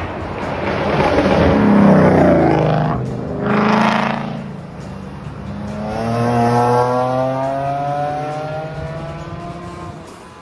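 A string of cars driving past one after another. The first sweeps by loudly about two seconds in, its engine note falling as it passes, and another surges briefly about four seconds in. Then the next group, led by an E46 BMW M3 convertible, accelerates past with a steadily rising engine note that fades near the end.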